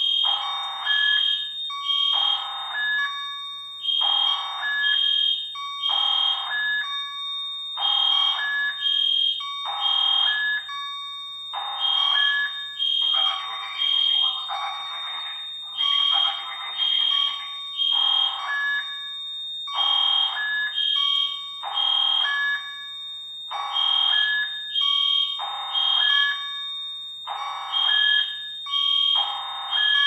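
Fire alarm set off as a drill from a Silent Knight IFP-1000 fire alarm control panel, sounding in loud pulses that repeat about every two seconds over a steady high tone.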